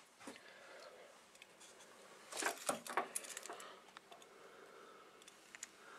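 Light clicks and clinks from handling the receiver's metal chassis, bunched together about two to three and a half seconds in, with a few scattered ticks over faint room tone.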